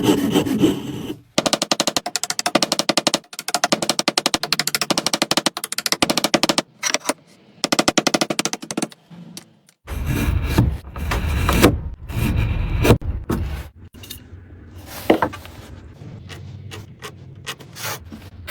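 A tool working wood: a fast run of even rasping strokes, then heavier, irregular scraping and rubbing in the second half.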